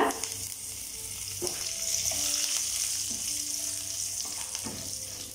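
Fresh curry leaves sizzling in hot oil in a kadai with mustard seeds, dal and cashews, stirred with a wooden spatula. The hiss swells about a second and a half in and eases toward the end.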